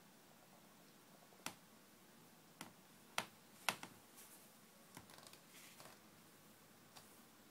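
Near silence broken by about half a dozen soft, scattered clicks, the loudest two just past the middle, with a faint rustle for a couple of seconds after them.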